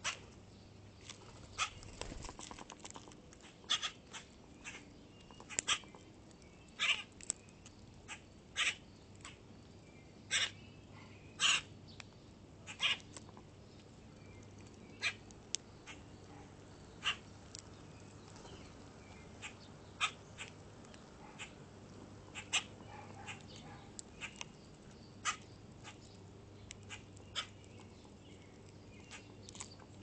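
Common grackles at a plastic hanging seed feeder: an irregular string of short, sharp clicks and chacks, roughly one or two a second, over a faint steady low hum.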